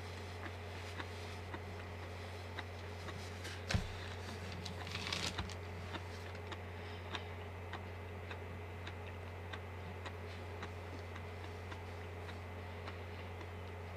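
A clock ticking about twice a second over a steady low hum. About four seconds in there is a single thump, followed by a brief rustle.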